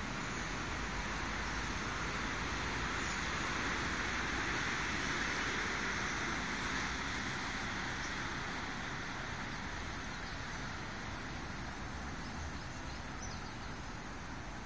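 Steady outdoor background noise: a rushing hiss with a low rumble underneath, swelling a few seconds in and then easing off.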